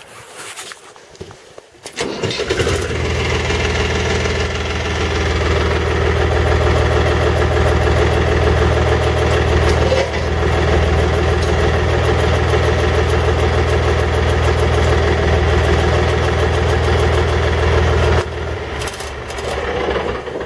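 Compact tractor engine starting about two seconds in and running steadily, then dropping in level near the end.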